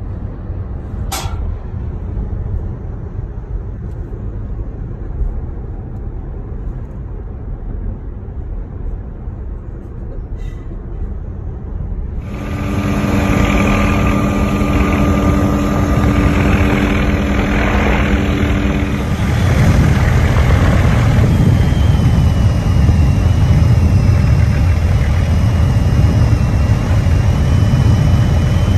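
Tyre and road rumble inside the cabin of a moving Tesla Model S, with a short click about a second in. About twelve seconds in it gives way to a helicopter's engine and rotor noise heard from inside the cabin in flight, first a steady hum of several even tones, then from about twenty seconds a louder low rumble with a thin high whine.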